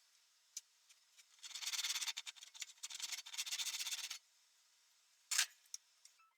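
Hand sanding: about two and a half seconds of quick scratchy rubbing strokes. A short sharp noise follows about a second later.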